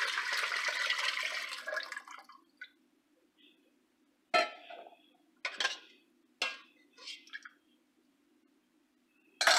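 Water being poured into a stainless steel Instant Pot inner pot, the pouring tailing off about two seconds in. Then a metal ladle stirs and knocks against the pot a few times in short, separate strokes.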